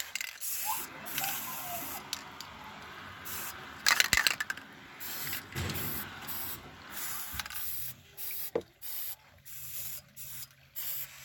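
Aerosol spray paint cans hissing in a run of short bursts as paint is sprayed onto water for hydro dipping, the spurts becoming shorter and more broken in the second half. A loud clatter of clicks about four seconds in.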